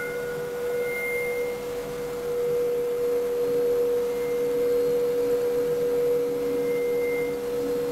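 Helicopter taking off, heard from inside the cabin: a steady whine over a broad engine and rotor noise, growing slightly louder about three seconds in as it climbs.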